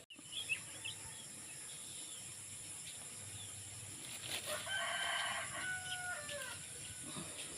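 A rooster crowing once, about halfway through: one call of about two seconds that holds and then drops in pitch at the end. A few short bird chirps come near the start.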